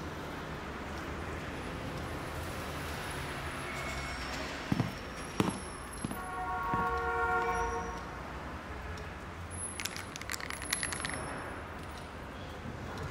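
Steady background hum with a few sharp knocks, a held horn-like tone lasting about a second and a half in the middle, and a quick clatter of small clinks later on.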